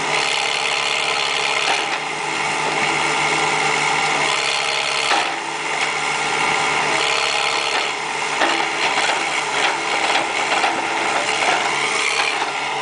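Backhoe engine running steadily, with mechanical rattling and clanking and more frequent knocks in the second half.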